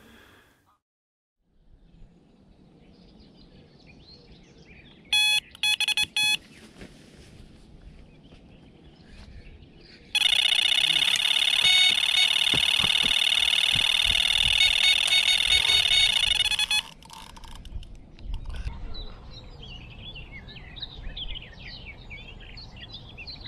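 Electronic carp bite alarm: a few separate bleeps about five seconds in, then, about ten seconds in, a loud continuous rapid-fire tone for around six seconds. This is a full run, a hooked carp taking line.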